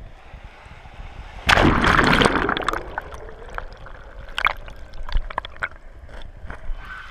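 Shallow sea surf heard underwater: a loud rush of water about a second and a half in, fading over about a second, then scattered clicks and pops of bubbles over a low steady rumble.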